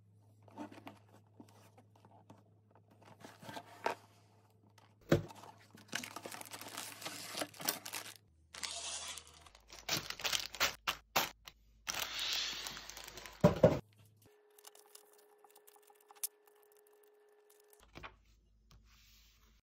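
Cardboard LEGO box and sealed plastic bags of bricks being handled, with crinkling, rustling and tearing plastic, loose bricks clicking, and a few sharp knocks. It is quieter near the end, where a paper booklet is leafed through.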